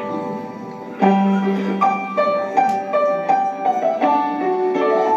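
Piano-led instrumental introduction to a gospel song, with held chords and a moving melody line.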